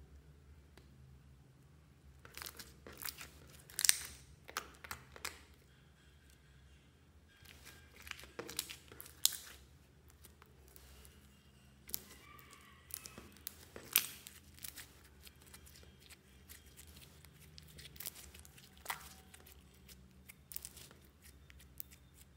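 Glossy slime being stretched, folded and pressed by hand, giving bursts of sticky crackling and sharp pops between quieter stretches.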